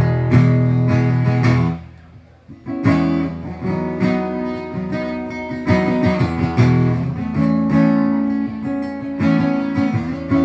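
Acoustic guitar strummed in an instrumental passage of a live song. A chord is cut off just under two seconds in, and after a gap of about a second the strumming starts again.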